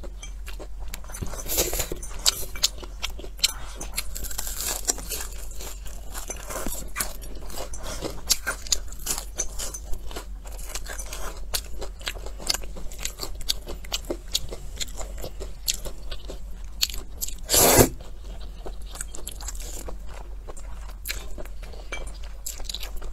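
Close-up eating sounds: thick stir-fried noodles being slurped and chewed with many small wet smacks and clicks, and one louder, half-second sound about eighteen seconds in.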